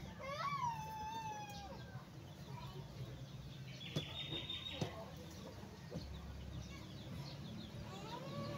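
A rooster crowing, its drawn-out last note falling slowly in pitch over the first two seconds. A few faint knocks and a short high note follow.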